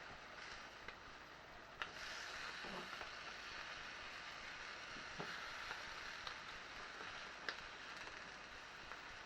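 Halloumi slices sizzling and crackling in an oiled frying pan, with a few sharp clicks; after the loudest click, about two seconds in, the sizzle grows louder.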